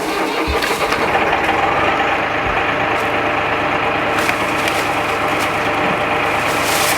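Engine running loudly and steadily, with an even, unbroken pitch.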